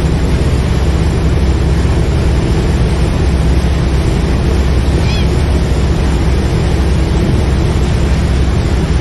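Boat engine running steadily under way, with the rush of water from the wake; a gull gives a brief call about five seconds in.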